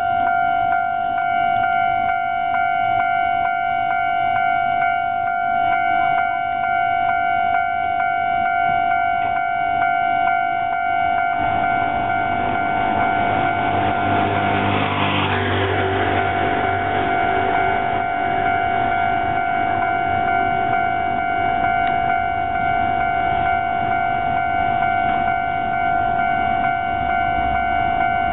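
Japanese railway level-crossing warning bell ringing steadily, with a train rumbling through the crossing, building from about twelve seconds in, loudest around fifteen seconds in, and fading a few seconds later.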